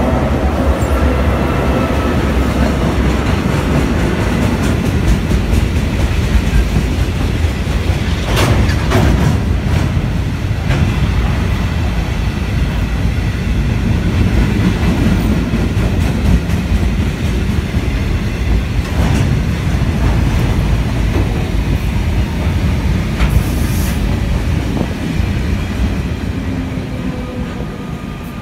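Two Victorian Railways B class diesel-electric locomotives running past close by, their engine note fading within the first seconds. A long rake of cement tank wagons then rolls past with steady wheel-on-rail rumble and occasional sharp clicks, and it fades near the end as the train draws away.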